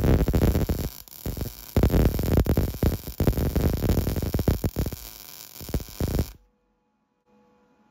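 Electric arc welder crackling and spitting while welding steel. It eases off briefly about a second in, resumes, and cuts off abruptly about six seconds in as the arc is broken.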